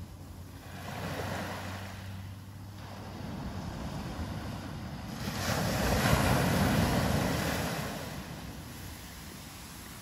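Ocean surf on a sandy beach: waves breaking and washing up the shore. The loudest wave breaks about halfway through and fades over two seconds or so.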